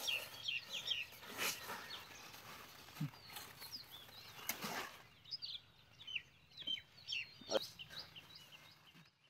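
Small birds chirping in quick, repeated short calls, with a few brief rustles of leaves and vines as cucumbers are picked from the plants.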